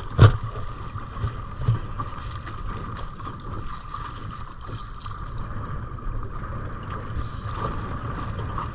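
Wind buffeting the microphone on a small boat at sea, with a sharp knock about a quarter second in and a smaller one shortly after. A steady high whine sits underneath.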